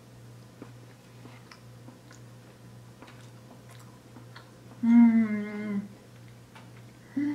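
A person chewing a soft donut with her mouth closed: faint wet mouth clicks. About five seconds in comes a loud closed-mouth "mmm" of enjoyment lasting about a second, dipping slightly in pitch, and a shorter one near the end.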